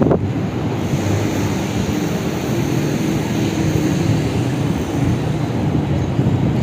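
Thunderstorm noise: a loud, continuous low rumble with no clear break.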